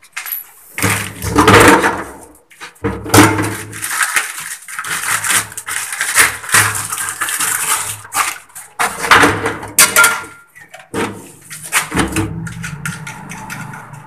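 Plastic toilet-cistern fittings, washers and bracket parts being handled and fitted by hand: irregular clattering, knocking and scraping.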